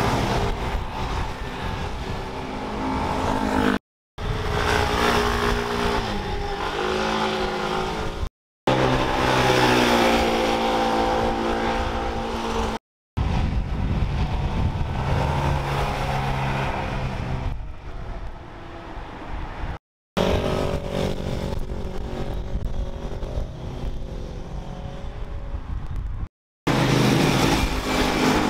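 High-performance vehicle engines passing at speed, one after another in short segments, each cut off by a brief silence. The engine pitch dips and climbs again as the throttle is worked.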